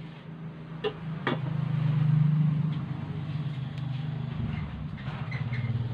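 Aluminium pot lid set down on a metal wok, with two light metal clanks about a second in. Under it, a steady low hum runs throughout, swelling briefly after the clanks.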